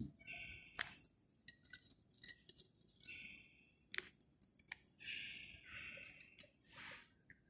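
Faint clinks and taps of communion vessels and wafers being handled at the altar, with two sharper clinks, one about a second in and one about four seconds in, among lighter ticks.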